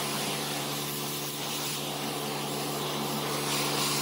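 Pressure washer running steadily: a motor drone under the loud hiss of the high-pressure water jet spraying onto concrete.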